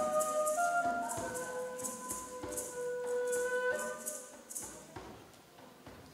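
Background music: a slow flute melody of long held notes over a steady shaker rhythm of about two strokes a second, fading down near the end.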